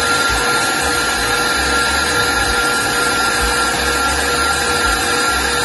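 Stand mixer motor running steadily with a constant whine, its wire whisk beating butter, powdered sugar and whipped cream into buttercream in a stainless steel bowl.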